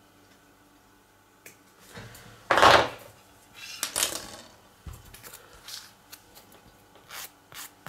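Handling noise at a work table: a loud rustling scrape about two and a half seconds in and a weaker one around four seconds, then a run of light clicks and taps as tweezers and small model parts are picked up and handled.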